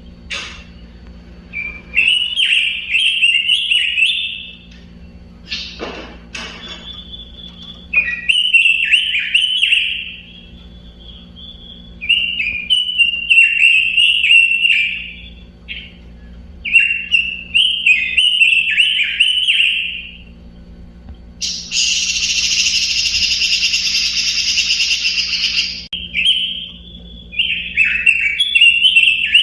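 Pekin robin (red-billed leiothrix) singing: rapid warbled phrases of about two seconds each, repeated every few seconds. About halfway through, a steady hiss lasts about four seconds. A faint low hum runs underneath.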